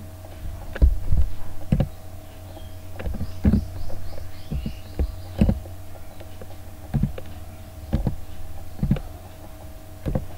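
Single keystrokes on a computer keyboard, about nine irregular knocks roughly a second apart, over a steady electrical hum.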